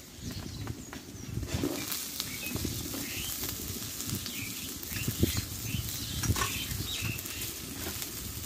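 Potato batons going into hot mustard oil in a steel kadai and sizzling as they fry, with many small pops and two louder knocks past the middle.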